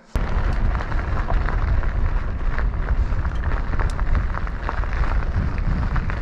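Steady wind rumble on the microphone with constant clicking and rattling from a fat bike riding over ice and snow on studded tyres. It starts abruptly just after the beginning.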